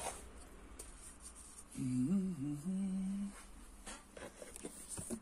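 A man humming briefly, about two seconds in: a few rising notes, a short dip, then one held note. Faint clicks and taps of handling parts are heard around it.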